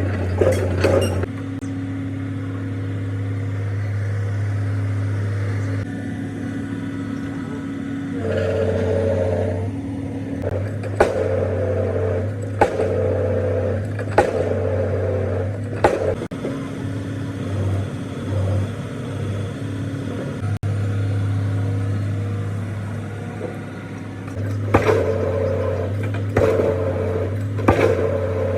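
Excavator diesel engine running steadily, joined in two spells by sharp impacts about every second and a half as its hydraulic hammer drives a concrete pile. The engine note rises during the hammering.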